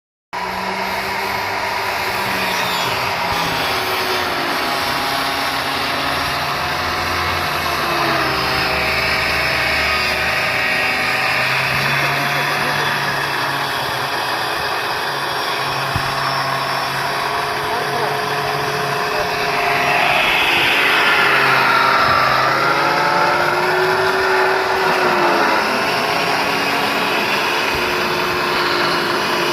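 Cutting machine running continuously, its motor pitch wavering as it works. It grows louder about twenty seconds in, with a whine that dips and rises again.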